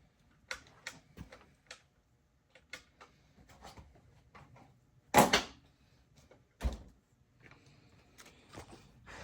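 Scattered light clicks and knocks, like things being handled or a door or drawer being moved, with two louder thumps about five and six and a half seconds in.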